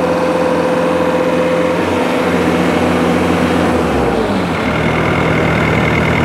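Doosan D24 four-cylinder common-rail diesel in a Bobcat S530 skid steer running at speed under hydraulic load. About four seconds in its note drops and settles to a lower steady speed.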